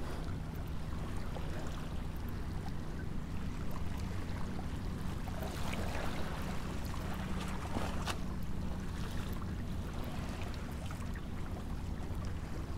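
Steady wind and water noise over a low, constant hum, with a couple of faint clicks about six and eight seconds in.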